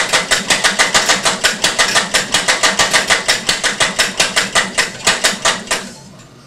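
Homemade single-valve engine running unassisted, a rapid even clatter of about six or seven strokes a second from its firing and its noisy ratchet cam drive. The clatter cuts off suddenly near the end.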